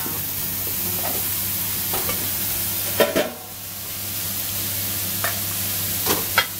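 Food sizzling in a wok over a gas flame while it is stir-fried, a steady hiss with a metal spatula knocking and scraping against the wok a few times, loudest about three seconds in.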